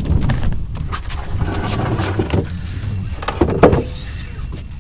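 Steady low rumble of wind on the microphone and the fishing boat at sea, with scattered knocks and a louder knock about three and a half seconds in.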